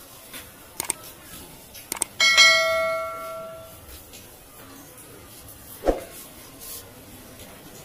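A single bell-like metallic ring about two seconds in, struck once and fading over about a second and a half, with a few sharp clicks before and after it.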